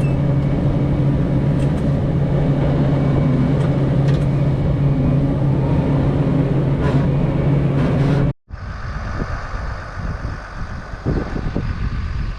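A farm tractor's diesel engine running steadily at a constant speed. It cuts off abruptly a little past eight seconds in and gives way to quieter wind buffeting on the microphone.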